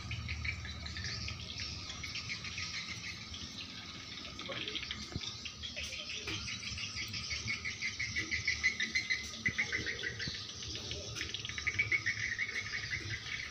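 Insects chirring in a fast pulsing trill that runs steadily and swells louder twice, with some bird chirping mixed in.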